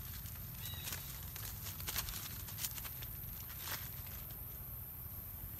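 Dry leaf litter rustling and crackling in scattered bursts under young monkeys play-wrestling, with a brief high squeak about a second in.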